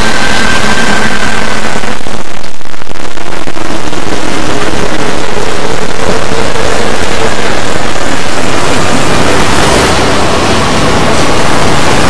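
Harsh, heavily distorted wall of noise at full loudness from many audio tracks stacked on top of each other, with faint held tones showing through now and then.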